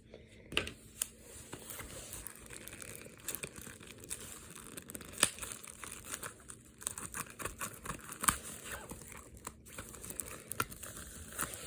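Plastic shrink wrap on a Blu-ray case crinkling and tearing as it is picked at and peeled off by hand, in many small irregular crackles.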